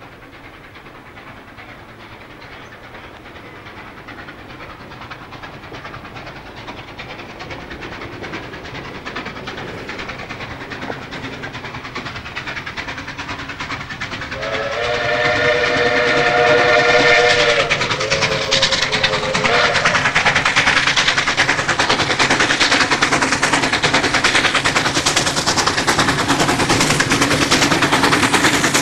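Victorian Railways R class 4-6-4 steam locomotive R766, an oil burner with double Lempor exhaust, working hard up a 1 in 50 grade with a passenger train; its exhaust beats grow steadily louder as it approaches. About halfway through, its steam whistle sounds a long blast of several tones at once, then a shorter one soon after.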